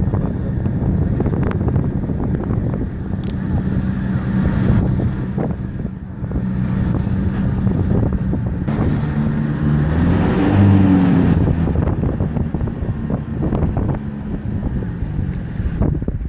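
Motorboat engine running steadily, with wind buffeting the microphone; the engine note shifts in pitch for a few seconds past the middle.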